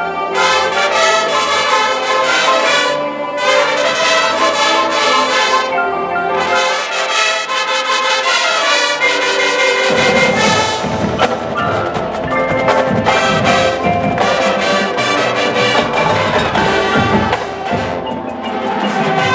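Marching band playing, brass with front-ensemble mallet percussion such as marimba and xylophone. Heavier percussion comes in strongly about halfway through.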